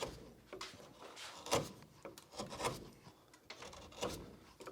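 Hand carving tool scraping and cutting into an old, hardened beaver-chewed stick in short, uneven strokes roughly every half second; the dry crust of the wood is resisting the blade.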